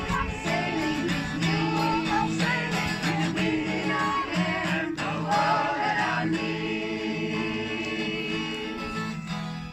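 Music: a song with singing voices over strummed guitar.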